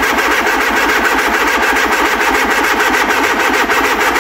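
Peugeot four-cylinder engine being cranked by a borrowed replacement starter motor, turning over with a steady, even rapid chugging rhythm but not firing.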